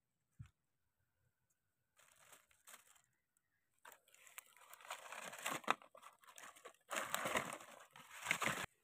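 Dry fallen leaves crunching and rustling on the forest floor: a short stretch about two seconds in, then a longer, denser one from about four seconds that stops abruptly near the end.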